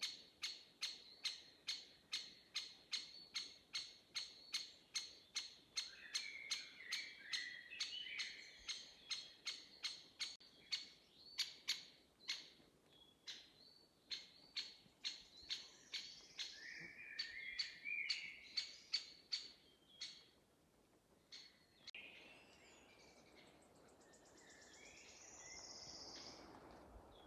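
Woodland birds. One bird repeats a short, sharp call about twice a second for roughly twenty seconds, then stops. Another bird sings warbling phrases twice over it. Near the end a few scattered calls and a soft rustle remain.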